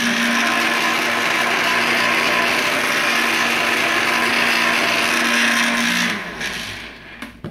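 Electric blender running steadily, grinding hard stale bread into breadcrumbs. About six seconds in it is switched off and the motor winds down.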